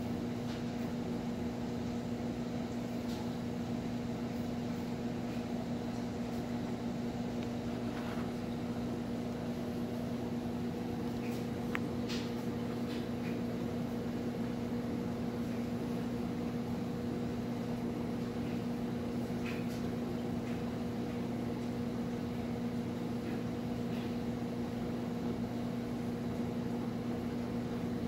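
Steady electric hum of running aquarium equipment, with a few faint clicks now and then.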